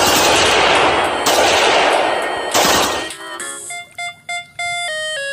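An AK-pattern rifle firing rapidly in three long strings for about three seconds. Then an electronic toy AK-47 gun plays a stepped beeping tune.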